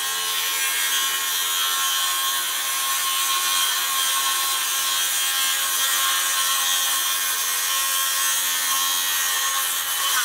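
DeWalt 60V cordless circular saw running steadily as its blade cuts straight through a countertop along a marked line, cutting out the opening for a drop-in sink. The cut ends and the saw stops suddenly at the very end.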